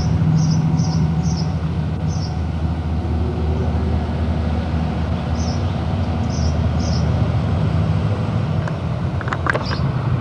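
Lake passenger boat's engine running with a steady low hum. Short high chirps of small birds come and go over it, and there is a brief clatter of clicks near the end.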